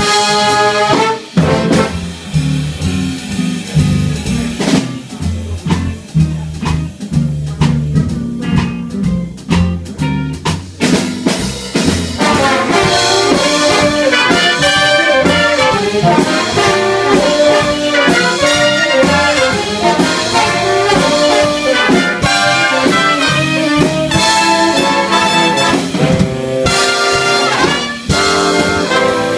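Big band swing jazz played live. For about twelve seconds it is mostly drums and low bass notes, with the trumpets silent. Then the trumpet and trombone sections come in together with loud, full brass chords over the drum kit.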